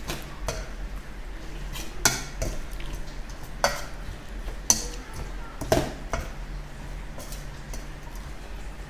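Metal spoon stirring and tossing shredded bamboo-shoot salad in a stainless steel mixing bowl, with irregular clinks and scrapes of the spoon against the bowl.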